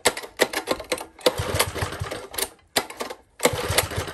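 Old Tecumseh four-stroke engine cranked by its recoil starter, about three pulls in quick succession, each a short rapid clatter as the engine turns over without catching and running.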